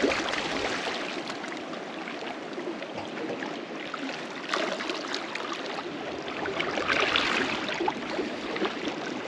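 Small sea waves lapping and trickling over weed-covered rocks at the water's edge, swelling a little about halfway through and again a couple of seconds later.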